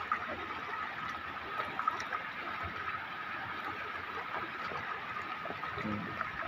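Floodwater flowing steadily over a submerged road and spreading across flooded paddy fields: an even wash of running water.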